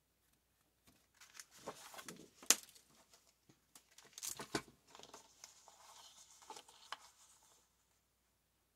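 Sheets of paper rustling and sliding as they are handled and laid onto a plastic paper trimmer, with scattered clicks and knocks. The sharpest knock comes about two and a half seconds in.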